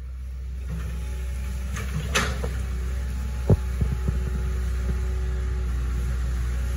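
Hitachi ZX110 excavator's diesel engine running with a steady low throb. A few short knocks come through over it, the sharpest about three and a half seconds in.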